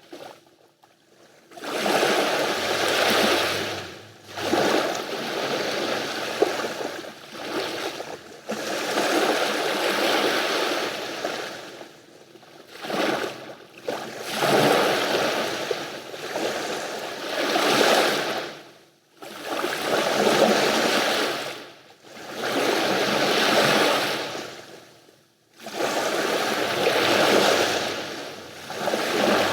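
Sea waves breaking and washing up the shore, coming in surges every two to four seconds with short lulls between them.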